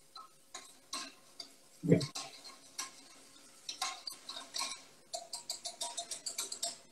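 Metal utensil clicking and scraping against a saucepan while stirring a butter-and-flour roux, with a quick run of rapid clicks about five seconds in. One louder, lower sound comes about two seconds in.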